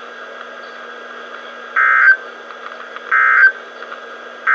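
NOAA Weather Radio end-of-message (EOM) SAME data bursts: short buzzing digital bursts, two about 1.3 s apart with a third starting at the very end. They signal that the alert broadcast is over. Steady radio hiss runs underneath.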